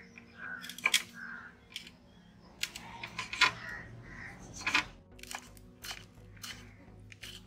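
Kitchen knife chopping tomatoes on a small wooden board over a steel plate: sharp knocks at an irregular pace, about ten in all.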